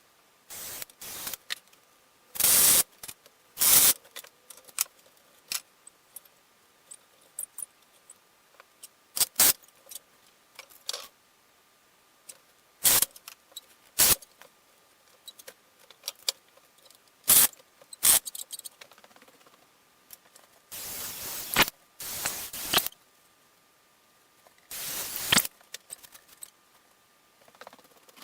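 Irregular workshop handling noises: scattered clicks, clatter and short scraping strokes of hand work with tools and wooden parts. There are a few longer scrapes of a second or two near the end.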